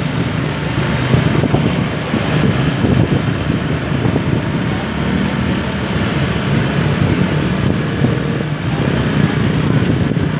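Heavy road vehicle's engine running amid steady traffic noise, with a low engine note growing stronger about halfway through.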